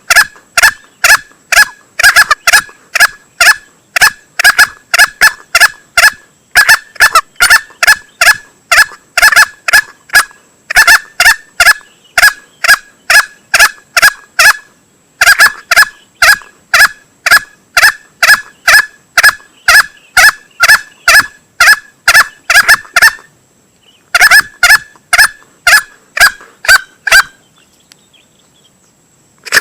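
Male green junglefowl lure call, used to draw birds for hunting: a fast series of short, sharp calls, about three a second, in runs broken by brief pauses every few seconds. There is a longer gap about 23 s in, and the calls stop shortly before the end.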